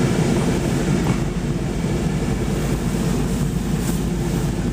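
Honda CR-V heard from inside the cabin while driving: a steady low rumble of engine and road noise.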